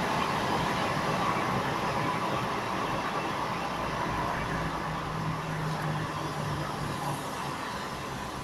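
Road noise inside a moving car's cabin: a steady rush of tyre and wind noise with a low engine hum, growing gradually quieter.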